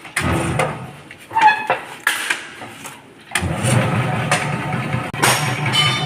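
Peanut skin peeling machine starting up: a few short knocks and rattles, then its motor starts about three and a half seconds in and runs steadily.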